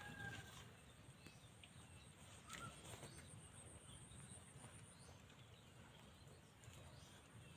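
Faint outdoor ambience: a steady, high-pitched insect trill with a few short, faint bird chirps.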